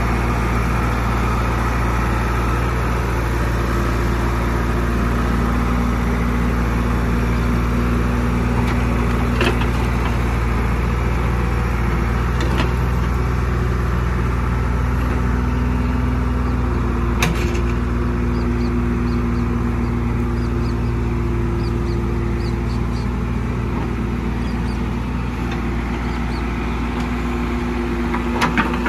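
JCB 3DX backhoe loader's Kirloskar diesel engine running steadily under hydraulic load as the backhoe digs and dumps soil, with a few sharp knocks from the bucket and soil.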